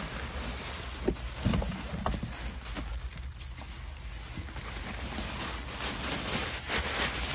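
Tissue paper rustling and crinkling as a leather tote is lifted out of its wrapping, with a few sharper crinkles about a second in and again near the end.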